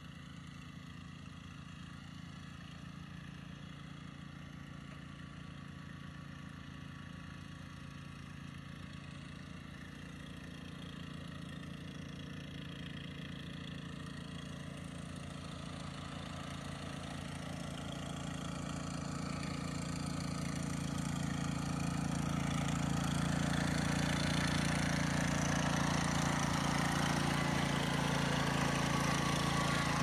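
Remote-controlled Husqvarna lawn tractor's petrol engine running steadily as the tractor drives, growing louder from about a third of the way in as it comes closer, then holding steady and loud.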